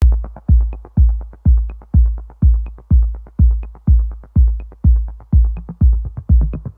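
Electronic dance music over the title cards, a heavy kick drum about twice a second with short hi-hat ticks between the beats.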